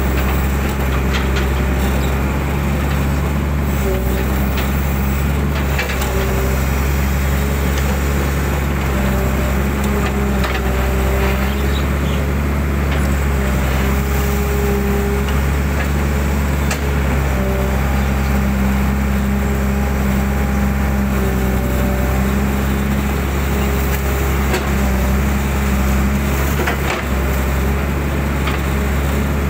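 Hydraulic excavator's diesel engine running steadily, with a hydraulic whine that shifts in pitch and comes and goes every few seconds as the boom and bucket move. Scattered faint knocks from the bucket working the mud.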